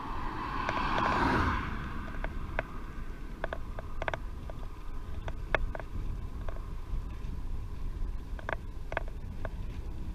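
Wind rumbling on the microphone of a camera carried on a moving bicycle, with scattered irregular clicks and creaks from the bike. A louder rush of noise swells and fades in the first two seconds.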